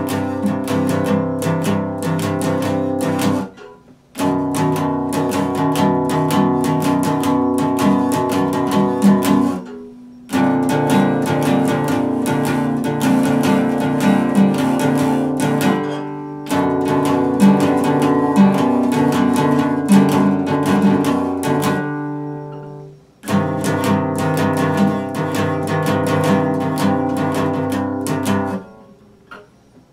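Epiphone acoustic guitar strummed through chords in passages of about six seconds, each followed by a short pause where the strings ring out and fade before the next passage.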